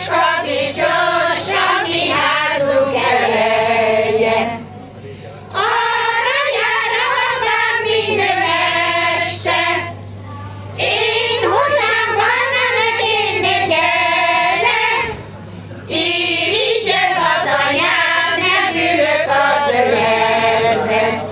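Women's folk choir of older village women singing a Hungarian folk song without accompaniment, in long phrases with three short breaks between lines.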